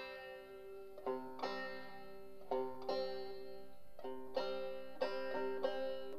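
Strummed chords on a plucked string instrument playing a slow instrumental intro to a song, with a chord struck about every second and each one left to ring.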